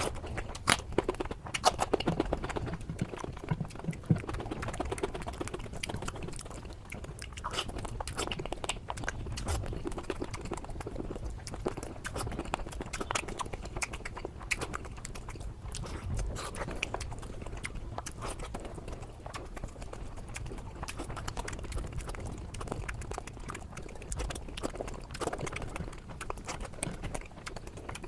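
Close-miked eating: chewing, with a steady run of small mouth clicks and smacks.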